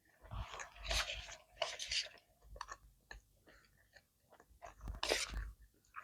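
A person chewing and biting food close to the microphone, mukbang-style, in irregular bursts of mouth noise. The loudest bites come about a second in, near two seconds and around five seconds.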